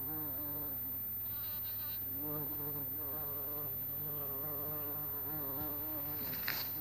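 Bumblebee flying, its wing buzz wavering up and down in pitch. A brief click near the end.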